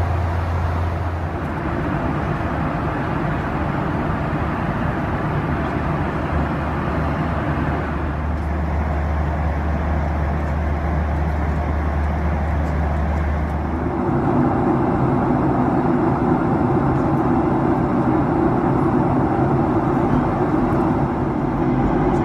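Steady in-flight cabin noise of a Boeing 737-800: a continuous drone of engines and airflow. About 14 s in, it turns louder, with the deep hum dropping away and a somewhat higher drone taking over.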